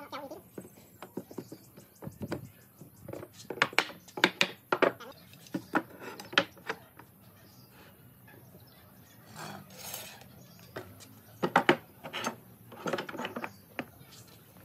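Wooden frame pieces knocking together and steel pipe clamps clinking against the wood and the workbench as a glued frame is fitted and clamped. The knocks and clinks are sharp and irregular, with a softer scraping sound near the middle.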